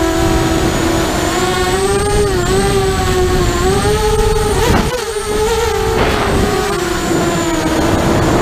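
Mini quadcopter's motors and propellers whining steadily, the pitch wavering up and down with the throttle, with a brief drop about five seconds in before picking back up.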